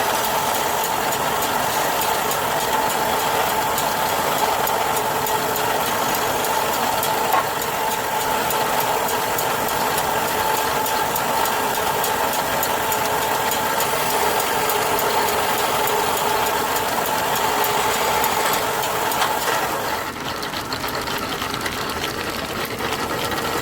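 Wood-turning lathe running steadily: a constant machine drone with a steady whine over it, dropping a little in level and brightness about twenty seconds in.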